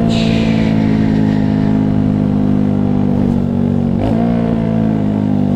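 Yamaha YS 250 Fazer's single-cylinder four-stroke engine running steadily under way, with wind noise on the camera microphone. The engine note shifts briefly about four seconds in.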